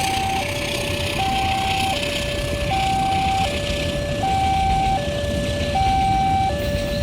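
Automatic railway level-crossing warning alarm sounding through a horn loudspeaker: a slow two-tone hi-lo siren, switching between a higher and a lower tone about every three-quarters of a second, over a steady rumble and hiss.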